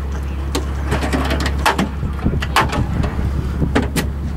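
Scattered sharp knocks and clanks of metal cowling panels and tools being handled on a helicopter's engine deck, over a steady low hum.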